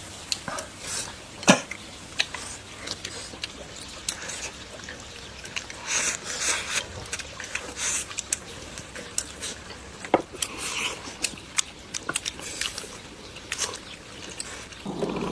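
A person eating braised pork belly: wet chewing and mouth noises, with scattered sharp clicks.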